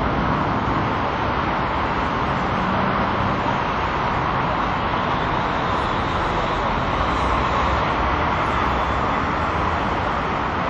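Steady roar of city street traffic, an even wash of noise with a low rumble underneath.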